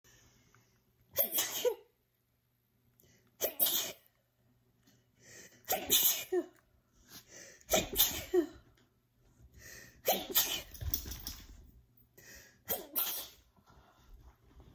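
A person sneezing six times in a row, about every two seconds, with short breaths in between. It is an allergic sneezing fit set off by dog dander.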